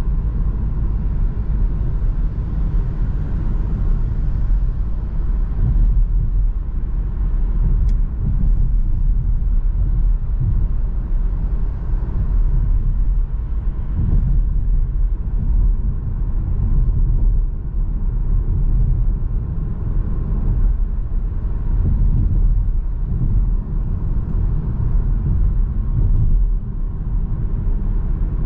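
Seat Arona's 1.5 TSI four-cylinder turbo petrol car on the move, heard on board: a steady low rumble of engine and road noise with small rises and falls in level.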